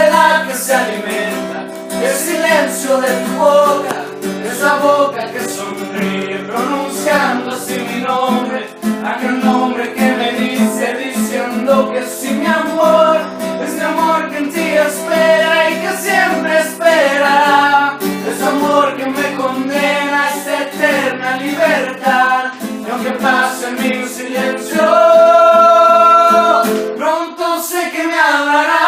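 Music: a song with guitar and singing, with a loud held note near the end.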